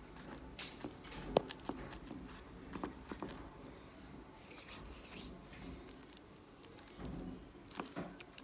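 Foam-bead slime being squished and poked by hand in a plastic tub: faint, scattered crackles and sticky pops, with one sharper click about a second and a half in.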